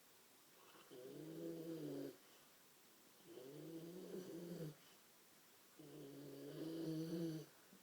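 Steady snoring in sleep: three long snores about two and a half seconds apart, each a low, humming sound.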